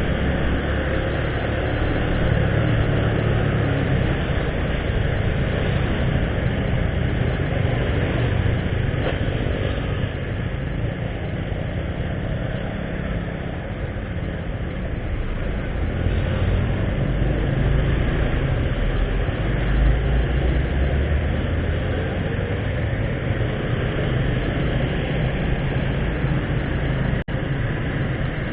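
Road noise from riding a motorbike in town traffic: steady engine sound mixed with low wind rumble on the microphone, with a momentary dropout near the end.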